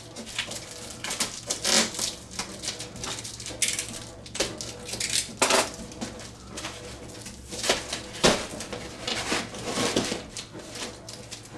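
Packaging being handled and pulled apart while a model plane part is worked out of its shipping box: irregular rustling and crinkling with scattered sharper knocks and clatters.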